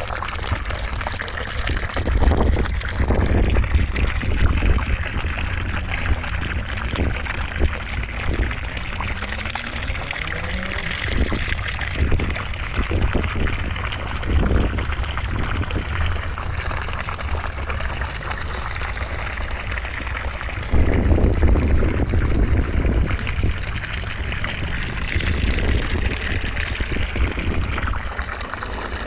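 Continuous rushing white noise with a deep rumble underneath and a hiss that slowly swells and sweeps; it grows a little louder about two thirds of the way through.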